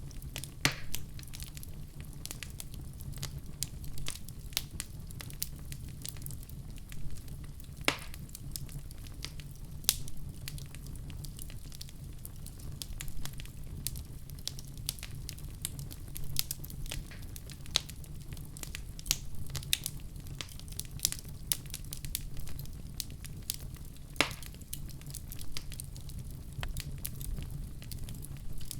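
Wood fire burning with a steady low rumble and frequent sharp crackles, a few louder pops among them, about a second in, around 8 and 10 seconds, and near 24 seconds.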